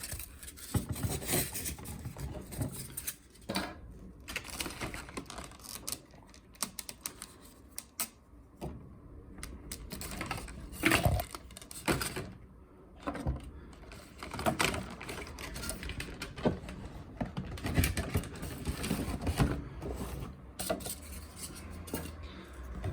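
Model locomotive packaging being handled and opened by hand: irregular clicks, crinkles and rustles of plastic and card.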